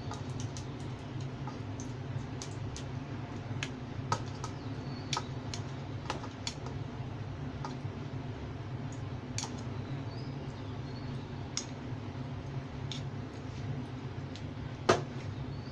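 Light, irregular clicks and taps of a utensil against dishes while a topping is spooned into a bowl, with one louder clack near the end, over a steady low hum.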